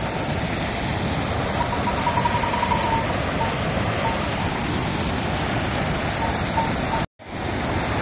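Fast glacial mountain river and waterfall rushing in a steady, even roar of white water. The sound drops out completely for a moment about seven seconds in.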